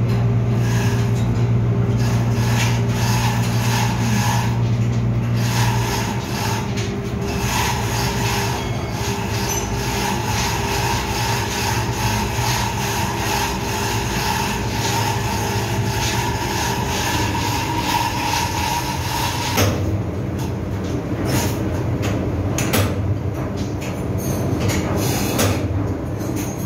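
Steady mechanical drone of a ship's engine room machinery, heard from inside the main engine crankcase. A low hum eases about six seconds in, and a higher whine stops suddenly about twenty seconds in while the broad drone carries on.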